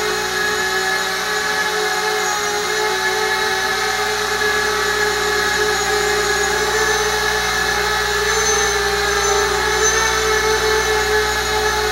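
Eachine Falcon 180 racing quadcopter's brushless motors and propellers whining steadily in a hover, the pitch wavering slightly as the throttle shifts.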